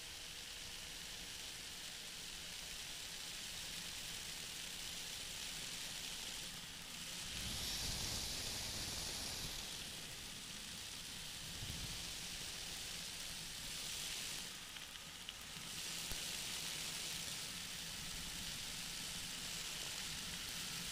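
Steady hiss of wind and engine noise from a flexwing microlight trike in flight, swelling briefly about eight seconds in and again about fifteen seconds in.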